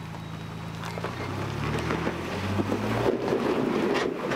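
Ford Bronco's engine pulling under load while it climbs a steep rock ledge, its note rising slightly and then dropping away about three seconds in, with a rough grinding of tyres scrabbling on the rock growing louder over the second half and a sharp click near the end.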